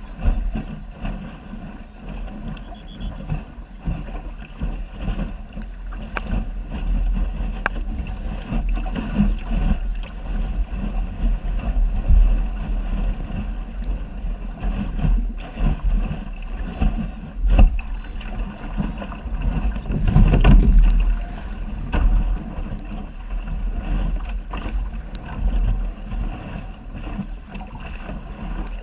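Wind buffeting the microphone on a small sailing dinghy's bow, with water rushing and splashing against the hull. There are occasional sharp knocks from the boat and a stronger gust about twenty seconds in.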